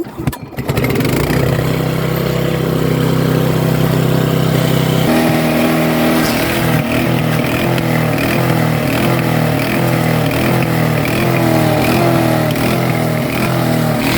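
Super Handy wood chipper's small gasoline engine running at high throttle. About five seconds in its note shifts, and then its pitch rises and falls regularly, roughly once every 0.7 seconds: the engine surging, a fault the owner has not traced.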